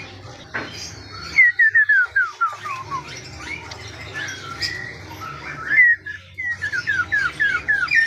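Caged songbird singing two phrases, each a quick falling run of about eight clear whistled notes. The first comes about a second and a half in, the second near the end.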